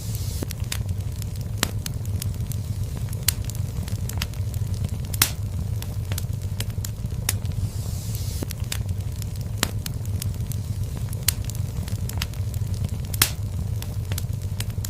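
Wood fire in a fireplace crackling, with irregular sharp pops over a steady low rumble of the flames. The two loudest pops come about 5 and 13 seconds in, and a soft hiss rises briefly around the middle.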